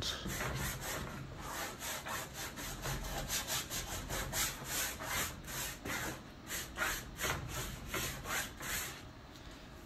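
Wet acrylic paint being rubbed and blended across a stretched canvas: quick back-and-forth strokes, about three to four a second, stopping about nine seconds in.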